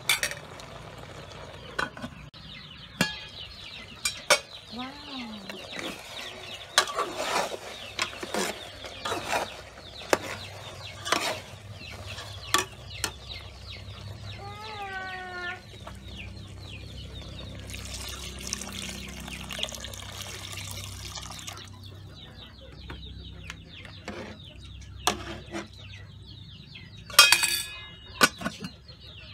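Metal clinks and knocks from a spoon and an aluminium cooking pot of braised fish and eggs, with chickens clucking at times. Near the end the aluminium lid clanks onto the pot.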